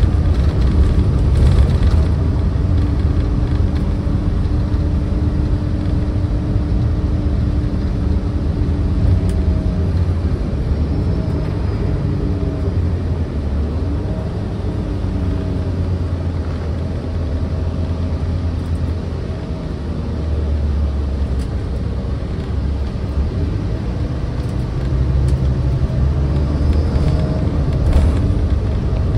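Transit bus riding along, heard from on board: a steady low engine and road rumble. The engine's pitch rises and falls a few times as the bus changes speed and shifts gears.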